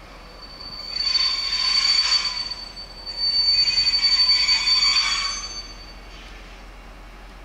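Railway vehicles in the station making a high, steady squeal over a hissing rush that comes in two surges, the first about a second in and the second from about three to five and a half seconds. It then falls back to a low steady background.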